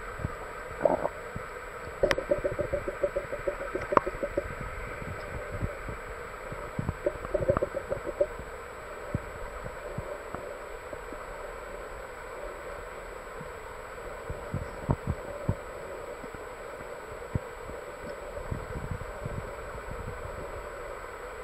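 Sound picked up by a camera underwater: irregular, muffled low thumps and knocks against the housing, with short buzzing rattles about two seconds in and again around seven seconds.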